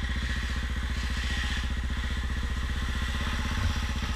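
Small moped engine running at a steady speed while riding, its firing pulses even and unchanging.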